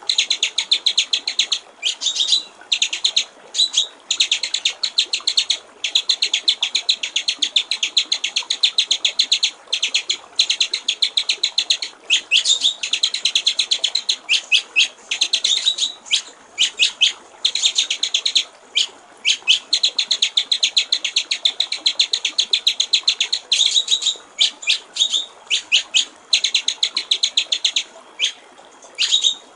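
White-rumped shama (murai batu) singing in long runs of very rapid, sharp repeated notes, each run lasting several seconds and broken by short pauses.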